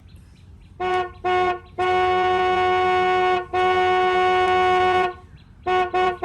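Electronic toy horn honking on one steady pitch: two short beeps, two long blasts, then two more short beeps near the end.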